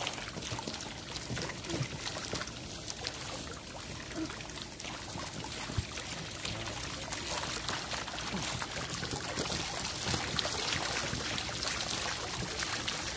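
Water splashing and churning as a harvest net is hauled through a shrimp tank, with many small flicks and splashes from crowded vannamei shrimp jumping at the surface. It grows gradually louder toward the end.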